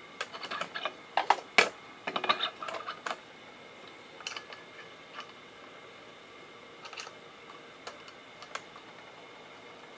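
A quick run of light clicks and taps for about three seconds, then a few scattered single clicks, over a faint steady hum.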